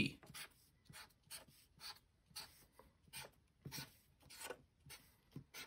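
Marker pen drawing short lines on paper: a quick series of faint, brief strokes, about two or three a second.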